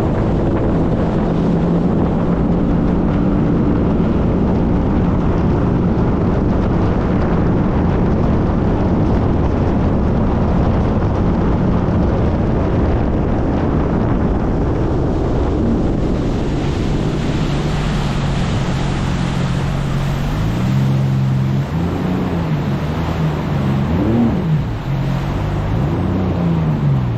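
Jet ski engine running steadily at speed under a heavy rush of wind and water spray. In the last several seconds the engine note rises and falls repeatedly as the throttle is opened and eased off.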